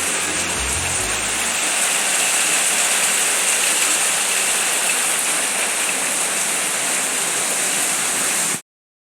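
Heavy rain pouring down in strong wind, a steady hiss that cuts off suddenly near the end.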